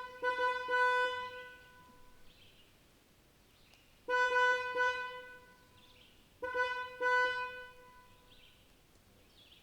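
Distant car horn honking in three bursts, each a few quick toots and then a longer blast that fades away. The bursts come at the start, about four seconds in, and about six and a half seconds in, with faint bird chirps in the gaps between them.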